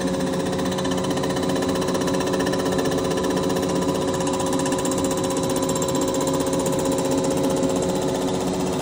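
Milling machine's face cutter running steadily, taking a light skim cut across the aluminium mating surface of a Mercury Verado outboard crankcase cap. It makes a fast, even rattle with several steady whining tones over it.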